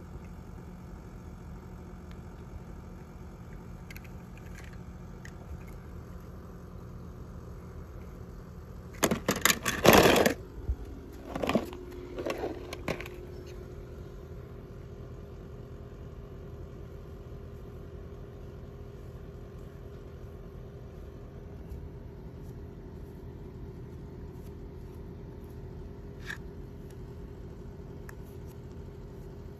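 Die-cast toy cars being handled: a loud clattering scrape about nine seconds in, then a few shorter clatters, over a steady low hum.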